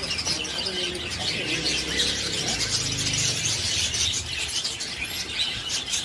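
Many caged budgerigars and other small parrots chirping at once, a dense, continuous high chatter.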